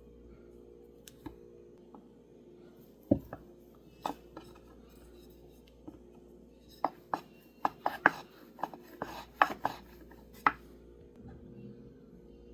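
A kitchen knife tapping against a cutting board in short, sharp knocks, as when cutting rolled dough into pieces: a couple of single strikes, then a quick, irregular run of about a dozen near the end.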